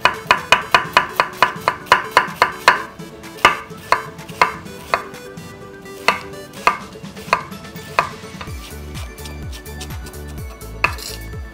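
Chef's knife shredding cabbage on a wooden cutting board: a fast run of chops, about five a second, for the first few seconds, then slower, spaced chops, and a single chop near the end.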